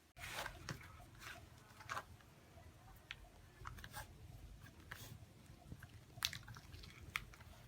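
Faint chewing and biting sounds of someone eating, with scattered small clicks and crackles.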